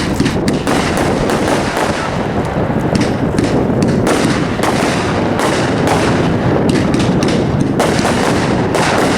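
Legend 'Catastrophic Storm' 500-gram consumer firework cake firing, a dense, unbroken run of overlapping shots and bursts.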